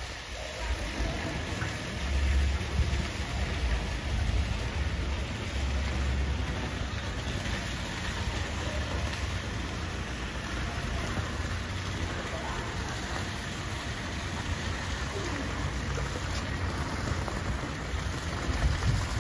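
Steady rain-like hiss of swimming-pool water pouring and splashing, with low rumbling in the first few seconds.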